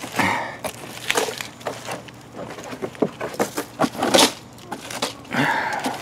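Dry leaf litter and banana peels rustling and crackling as the peels are spread out, a run of irregular snaps and clicks.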